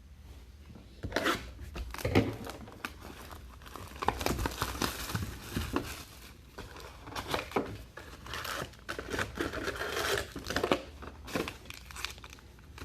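Trading-card packaging being torn open and crinkled: plastic wrap and pack wrappers ripping and crumpling in irregular crackles, starting about a second in.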